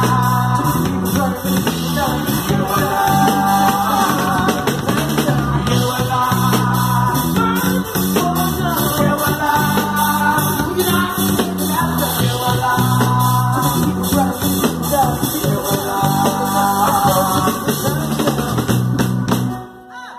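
Live band music: several singing voices over a kora, a steady bass line and a regular beat. The music stops near the end.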